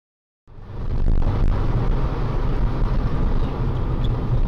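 Silence for about half a second, then the steady low rumble of a car driving on the road, heard from a dashcam inside the car.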